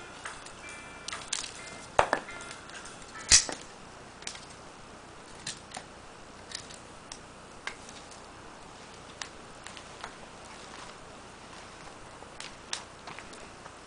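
Small fire crackling with sharp pops: two loud cracks about two and three and a half seconds in, then scattered smaller snaps at irregular intervals.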